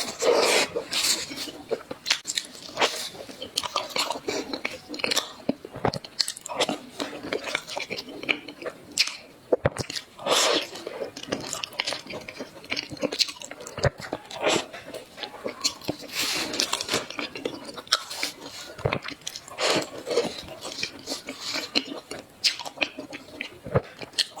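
A person biting and chewing food, with irregular crunches and mouth clicks.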